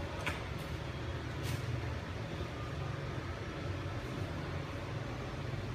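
Steady low hum, with two short clicks in the first second and a half.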